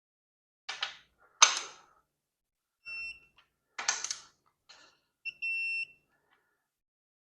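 Digital torque wrench beeping as it reaches the 70 ft-lb setting on small-block Chevy main bearing cap bolts: a short high beep about three seconds in and a longer one near five and a half seconds, between a few sharp clacks of the wrench at work.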